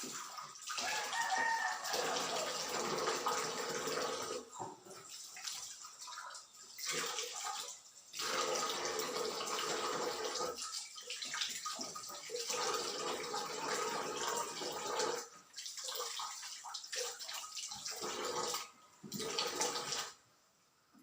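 Tap water running and splashing as soapy feeding-bottle parts are rinsed under it, the flow breaking off briefly several times and stopping near the end.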